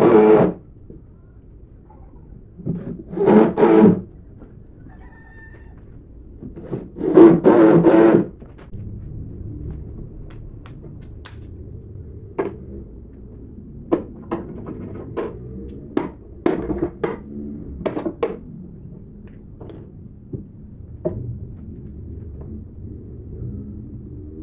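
Three loud pitched stretches, voice or music, in the first eight seconds. Then scattered sharp knocks and taps over a low steady hum, as wooden table parts are fitted and tapped together.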